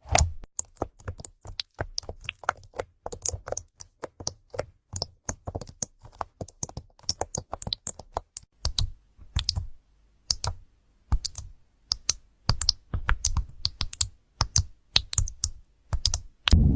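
Keyboard keys being typed on: an irregular run of short clicks, several a second, with brief pauses between bursts.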